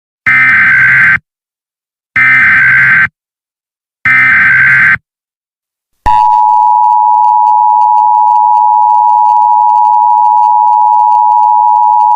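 Emergency Alert System SAME header: three loud, buzzing bursts of data tones, each about a second long and a second apart. About six seconds in, the EAS two-tone attention signal starts and holds steady, marking the start of an emergency alert.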